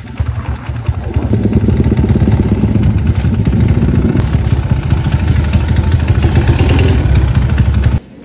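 Small motorcycle engine running at low speed and idling close to the microphone, with a quick, even pulse. It cuts off suddenly near the end.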